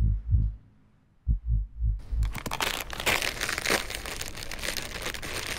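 A few deep, low thumps in the first two seconds. From about two seconds in, a small plastic-foil bag of Lay's Classic potato chips crinkles loudly as it is pulled open and handled.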